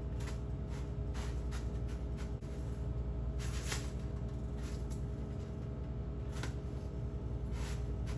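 A steady low machine hum with a few short rustles and knocks of handling scattered through it, the longest a scraping rustle about three and a half seconds in.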